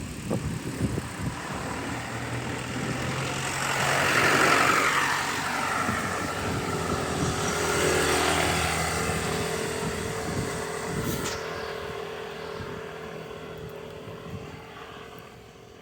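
A car coming up from behind and passing: its engine hum swells to a peak about four seconds in, then slowly fades away.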